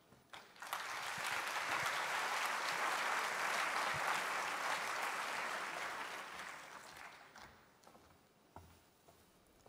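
Audience applauding to welcome a presenter to the stage. The applause builds in the first second, holds steady, then dies away about seven to eight seconds in.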